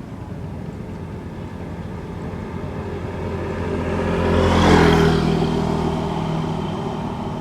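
A motor vehicle passing close by: its engine hum and tyre noise grow louder to a peak a little under five seconds in, then fade away.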